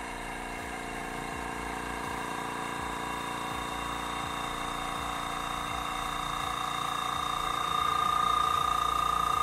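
Gaahleri GT-918 airbrush compressor running steadily just after being switched on, pumping up its air tank. The hum grows gradually louder, stepping up about eight seconds in as a higher tone comes forward.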